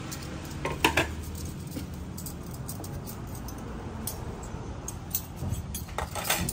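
Low steady room hum with a few light clinks of tableware, chopsticks and spoons against dishes, about a second in and again near the end.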